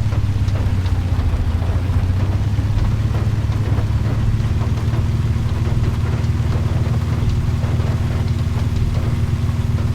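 Car engine running steadily, a constant low drone with no change in speed.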